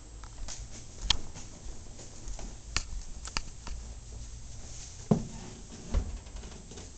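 Footsteps and handheld-camera handling noise: scattered light clicks and knocks, with two duller thumps about five and six seconds in.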